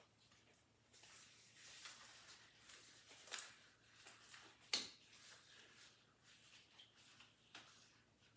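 Faint rustling of thin white disposable gloves being pulled on, with a few short sharp crinkles, the loudest about three and a half and five seconds in.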